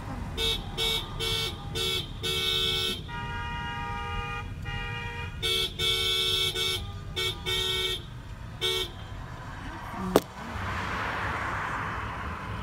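Car horns honking in a rhythm of short toots and longer blasts, with a second horn of a different, higher pitch held for about two and a half seconds in the middle. A sharp knock about ten seconds in, followed by a steady rushing noise.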